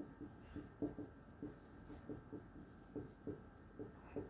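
Marker pen writing on a whiteboard: faint, short, irregular strokes, two or three a second.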